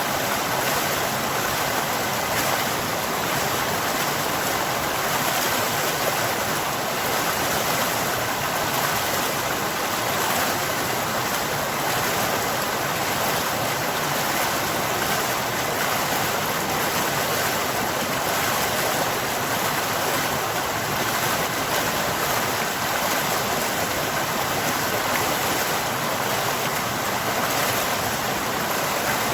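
Running water flowing steadily, an even, unbroken rush that does not change.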